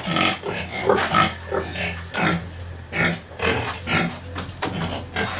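Pigs grunting in a pen, short calls coming about twice a second, over a steady low hum.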